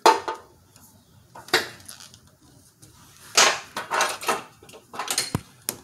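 Parts and tools being handled in a car's engine bay: a string of sharp clicks, clinks and rattles with quiet gaps between them. The loudest click comes right at the start, and a longer rattle comes about three and a half seconds in.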